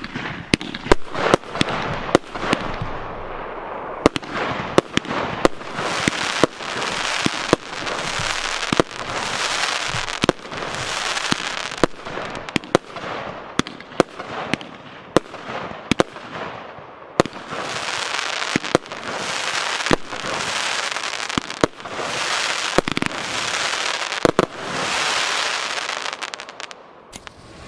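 A 25-shot, 30 mm consumer firework cake fires its shells one after another. Each launch gives a sharp crack, and the bursts leave swells of hissing, crackling stars roughly every couple of seconds. The cracks and crackle fade out in the last second.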